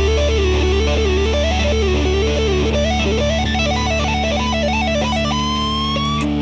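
Electric guitar music: a lead guitar plays a winding melody of quick notes over a steady held bass note, ending on a long held note that slides slightly upward.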